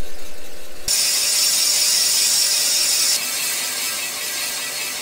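Shop press working as its ram pushes a cylinder repair sleeve down into an engine block bore: a rapid mechanical chatter. A click about a second in starts a louder stretch that eases off around three seconds in.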